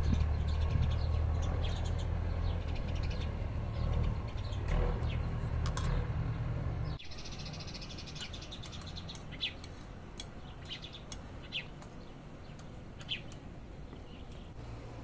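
Small birds chirping repeatedly, short high calls. For the first half a low rumble sits under them and is the loudest sound, stopping abruptly about seven seconds in; after that the chirps go on alone.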